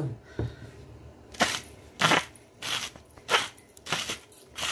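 Salt being dispensed over a bowl of raw meatball mixture: a series of about six short, gritty bursts roughly two-thirds of a second apart, starting about a second in.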